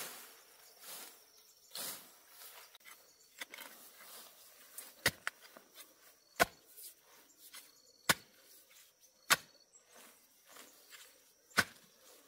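A series of sharp knocks, about five, spaced one to two seconds apart, among softer rustling, with a faint steady chirring of insects behind.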